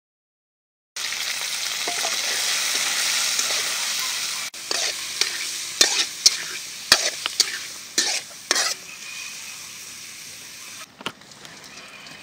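After about a second of silence, sliced squid hits hot oil in a wok and sizzles loudly. A spatula then scrapes and clatters against the wok as the squid is stir-fried, and the sizzle dies down near the end.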